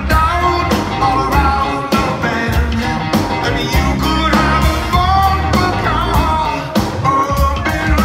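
Live rock band playing: a male lead vocal over electric bass and a steady drum beat.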